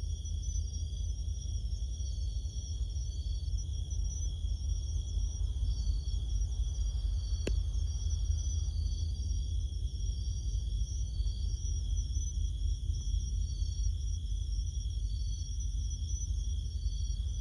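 Insects trilling at night, one high note unbroken and a higher one coming and going in short spells, over a constant low rumble; a single sharp click about halfway through.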